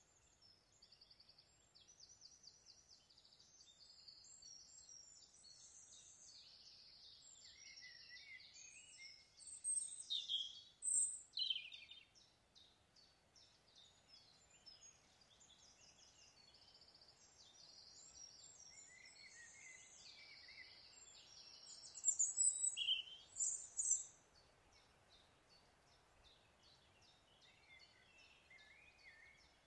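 Woodland birdsong: several birds calling with short, repeated high chirps and trills, louder about a third of the way in and again about three quarters through, over a faint steady background hiss.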